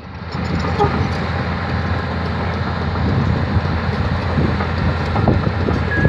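Komatsu D155A crawler bulldozer's six-cylinder diesel engine running steadily under load as it pushes sand, growing slightly louder over the second half, with irregular clanks from the machine.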